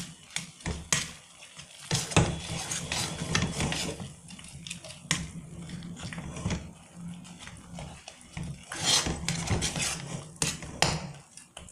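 Metal spatula scraping and knocking against a kadhai while thick khoya masala is stirred, in irregular strokes.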